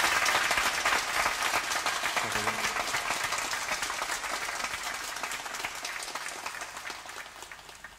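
Live audience applauding after a song, the clapping fading away gradually.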